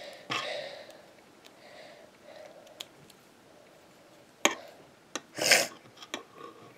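Plastic Lego Technic pieces being handled and pressed together: soft rubbing, a few sharp clicks, and a brief louder rustle about five and a half seconds in.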